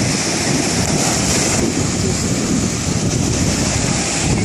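Small waves breaking and washing through the shallows, a steady rushing noise with a low rumble of wind buffeting the microphone.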